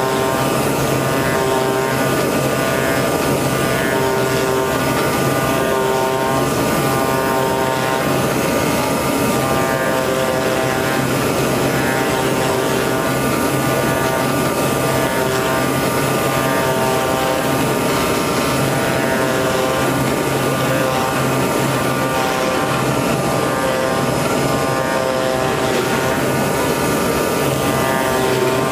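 CNC oscillating-knife cutting machine running as it cuts EPE foam: a steady machine drone, with whining tones that switch on and off every second or two.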